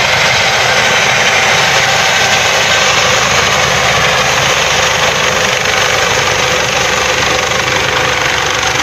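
Helicopter hovering low over the river: a loud, steady rush of rotor and engine noise with a faint steady whine.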